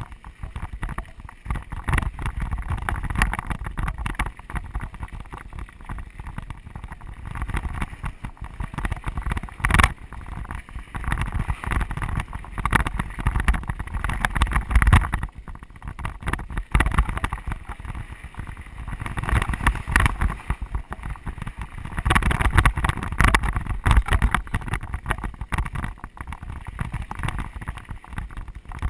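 Mountain bike riding fast over a rocky desert dirt trail: wind rumbling on the camera microphone, with the tyres crunching over gravel and frequent knocks and rattles as the bike hits bumps.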